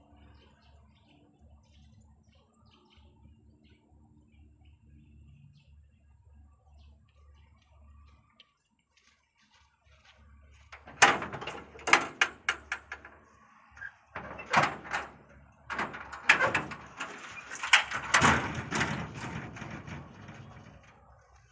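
Faint outdoor background with a few bird chirps, then from about halfway a loud run of irregular knocks, clatters and rustling, like things being handled or struck.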